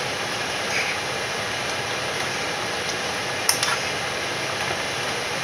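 Steady fan-like hiss with a few light clicks, and one sharper clack about three and a half seconds in.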